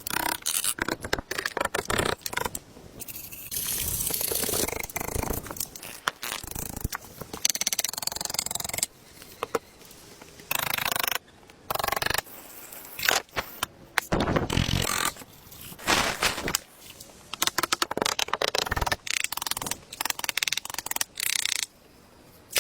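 A fast-cut run of hand-tool woodworking sounds: short stretches of scraping and knocking on wood, each broken off abruptly after a second or two.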